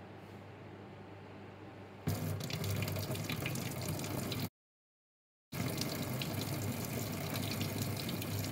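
Water from a tap fitted with a white tap filter starts running about two seconds in, then pours in a steady stream into a ceramic basin. The sound cuts out completely for about a second midway, then the stream carries on.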